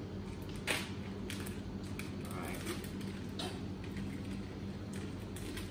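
Light taps and scrapes as plain flour and cocoa powder are tipped and scraped from a bowl into the stainless steel bowl of a stand mixer, over a steady low hum.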